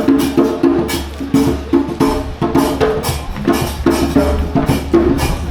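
Music with a steady percussive beat, sharp wood-block-like hits over a repeating melodic figure.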